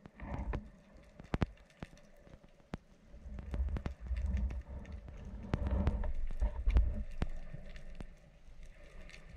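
Underwater sound picked up by a camera as a spearfisher creeps along a rocky seabed: scattered sharp clicks with a low rumble of water movement, strongest through the middle.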